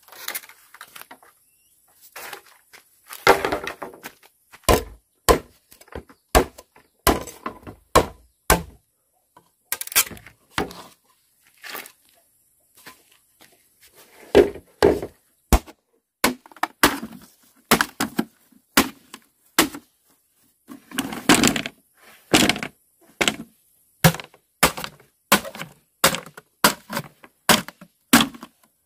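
Machete blows chopping and splitting green bamboo: an irregular run of sharp knocks, with a few longer cracking, splintering stretches where the culm splits apart.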